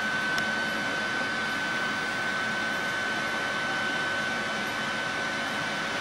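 24-volt fuel-fired parking air heater running: the steady rush of its blower fan with a steady high whine over it, as it burns fuel and blows out hot air.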